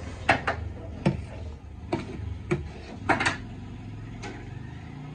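A string of sharp, irregular knocks and clacks from kitchen utensils, about eight in five seconds, some doubled close together, over a low steady rumble.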